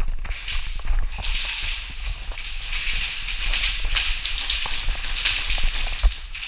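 Airsoft gunfire: a dense run of sharp ticks and snaps of shots and BBs striking plywood, over a steady hiss, with low thuds of running footsteps.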